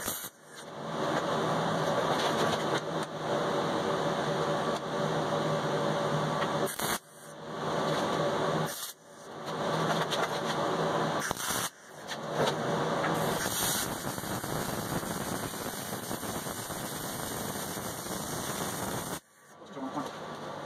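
MIG welder arc on steel plate, running in long stretches broken by four short pauses.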